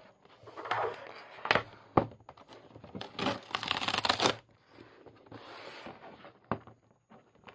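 Duct-taped cardboard parcel being handled and opened: a few sharp knocks and rustles as the box is shifted on a table, and a ripping noise lasting about a second near the middle as the tape is worked loose.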